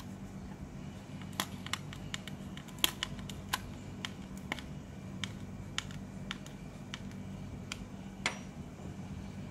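Small T10 Torx key driving a screw into the turn-signal unit inside a car wing-mirror cap: irregular light clicks and ticks of metal on screw and plastic, with a few sharper ones, over a steady low hum.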